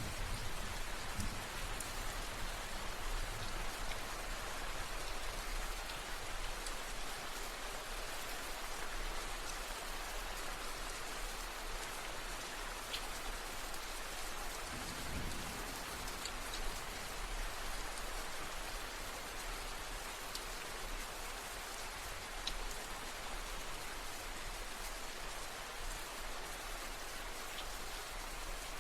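Steady rain falling on a surface, with individual drops ticking through the hiss. A brief low rumble swells about halfway through.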